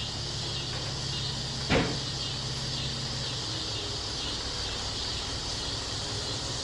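Steady background noise laid under a listening-test recording to imitate poor exam-room conditions: a low hum with a hiss over it, and one brief knock about two seconds in.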